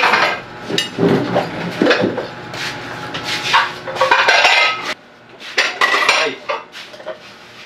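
Dishes, pots and cutlery clattering in irregular knocks and clinks as they are handled at a kitchen sink, with a brief lull a little after the middle.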